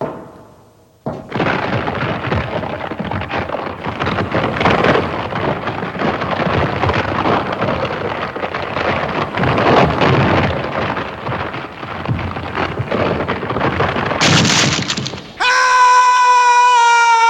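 Sound effect of a wooden suspension bridge giving way: a knock on the planks, then about fourteen seconds of wood cracking and splintering. Near the end a long scream starts, falling slowly in pitch.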